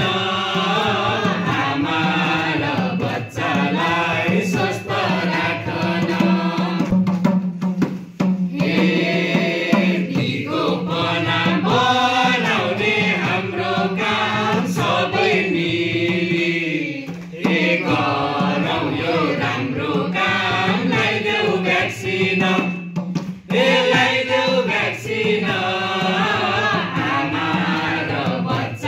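A mixed group of men and women singing a Nepali vaccination-awareness song in unison, phrase by phrase with brief breaths between lines.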